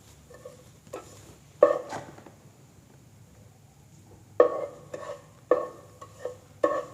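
Spoon knocking and scraping against a pan while stirring garlic and ginger frying in oil. A few separate knocks near the start, then a quicker run of them in the second half.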